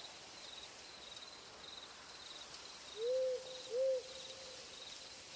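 Two soft owl hoots about three seconds in, over a faint background of cricket chirps repeating about twice a second.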